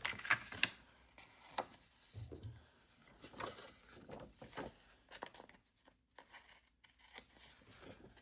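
Stickers being handled on a planner page: soft paper rustles and crinkles of a sticker peeling from its backing sheet, with scattered light clicks and taps, the sharpest in the first second.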